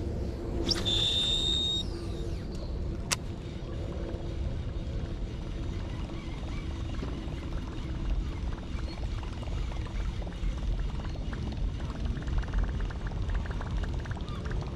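Fishing rod cast: line whirs off the reel with a high hiss for about a second, then a sharp click comes about three seconds in. After that a steady low rumble runs under faint rapid ticking near the end as the reel is cranked to retrieve the topwater lure.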